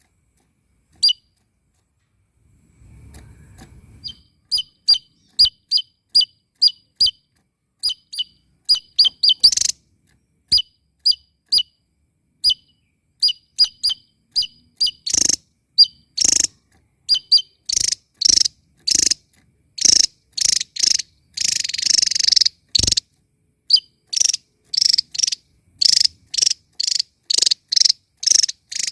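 Small songbird calling in a long series of short, sharp chirps. They are sparse at first, then come regularly, and grow faster and harsher in the second half.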